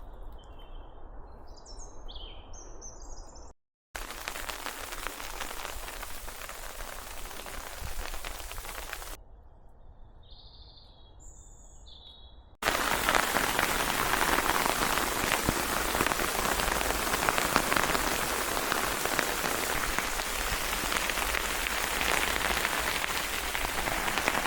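Steady rain falling, heard in two stretches, the second longer and louder. In the quieter stretches between them, small birds chirp.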